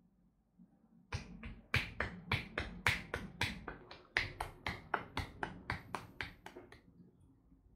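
Percussive massage strikes: loosely closed fists tapping rhythmically on a bent leg's thigh and knee. About twenty sharp hits at three to four a second, starting about a second in and stopping near the end.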